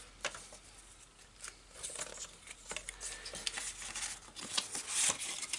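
Paper trimmer's sliding blade cutting a strip of gold cardstock, a faint scratchy hiss, then paper rustling as the cut strip is lifted off near the end.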